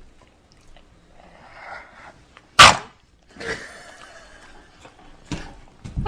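A dog snoring in its sleep: a soft drawn-in breath, then one loud sudden snorting burst about two and a half seconds in. A longer rasping breath follows, then two short sharp snorts near the end.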